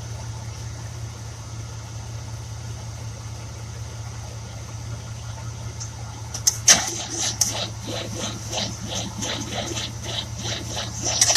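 A steady low hum, then about six and a half seconds in the 1966 Buick Riviera's 425 Nailhead V8 is cranked by its starter. It turns over slowly and unevenly, about three compression beats a second, and does not fire: a crank-no-start with a weak, slow turnover.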